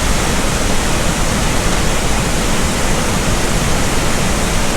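Aira Force waterfall: a loud, steady rush of falling water.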